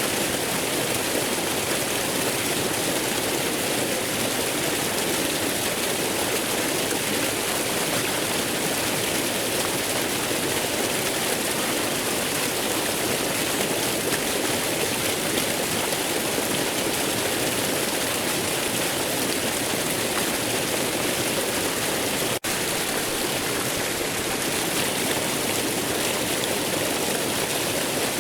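Waterfall: a steady, even rush of falling water, with a split-second break in the sound about twenty-two seconds in.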